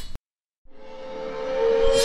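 A knife-slice sound effect, a short high metallic swish, cuts off just after the start. After a half-second of silence, a held tonal swell rises steadily in loudness: the opening riser of an outro's music.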